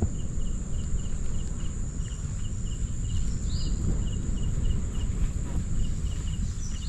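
Low, steady rumble of ocean surf breaking beyond the lagoon, with an insect chirping in short, evenly spaced pulses a few times a second and a steady high thin whine over it.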